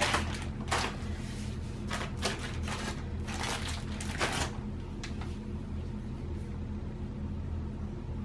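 Plastic zipper bag of latex balloons rustling and crinkling in several short bursts over the first four seconds or so as a balloon is pulled out of it, then only a low steady hum.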